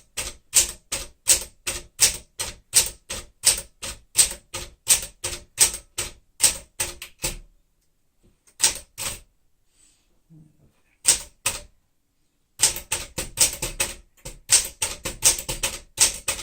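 1964 Smith-Corona Sterling manual typewriter being typed on, each character key struck in turn for a vertical alignment test. Strikes come evenly at about three a second, stop for a few seconds apart from a few lone strokes, then resume faster near the end.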